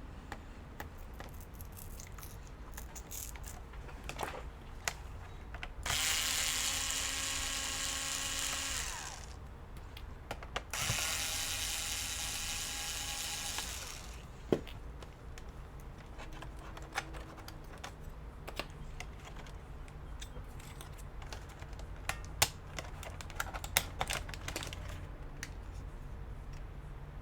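Small electric screwdriver motor running twice, about three seconds each, driving out laptop case screws. Scattered light clicks and taps of plastic parts and screws being handled come through the rest of the time.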